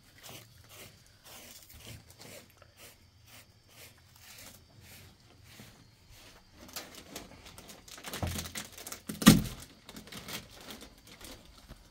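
Rustling and small clicks of things being handled, with two louder knocks about eight and nine seconds in, the second one the loudest.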